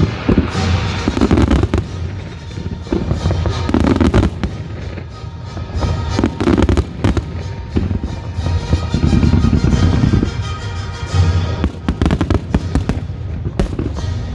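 Fireworks going off in rapid volleys of bangs and crackles, with heavy booms in clusters every couple of seconds, over loud music played for a fireworks show set to music.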